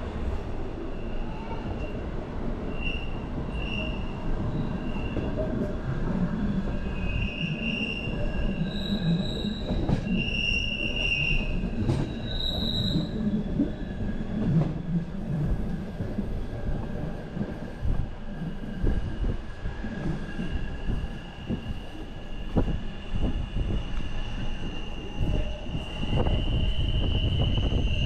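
Train running on the rails with a steady low rumble and high-pitched wheel squeal, in short squeals during the first half and one long drawn-out squeal near the end.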